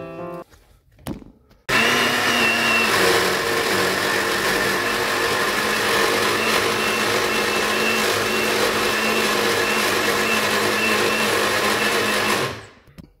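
Lid clicked onto an electric countertop blender jar, then the blender switched on about a second and a half in and running steadily for about ten seconds with a constant motor whine, puréeing spinach and parsley leaves in liquid; near the end it winds down and stops.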